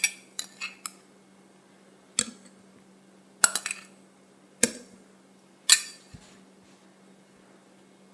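Small glass bowl clinking against the rim of a tall drinking glass as it is tipped and tapped over it. A quick run of about four sharp clinks at the start, then single clinks about a second apart.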